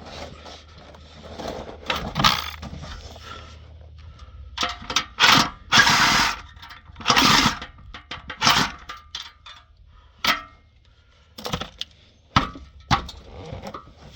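Metal hand tools clanking, rattling and scraping in an irregular run of sharp knocks, with the loudest clatter in the middle.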